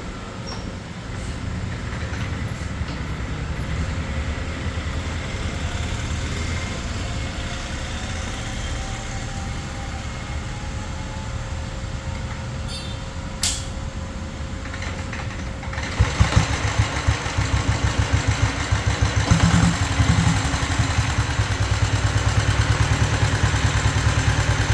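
Diesel-converted Royal Enfield Bullet's single-cylinder engine running with a rapid, even low pulse. About two-thirds of the way through it abruptly gets louder and its beat more pronounced.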